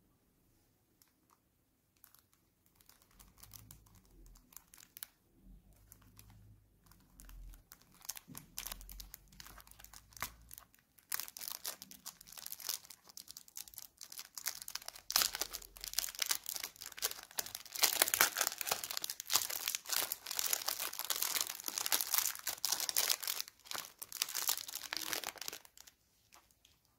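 Clear cellophane wrap being torn and peeled off a small cardboard cosmetics box, crinkling. Light handling noises at first; the crinkling grows loud and dense from about eleven seconds in, then stops just before the end.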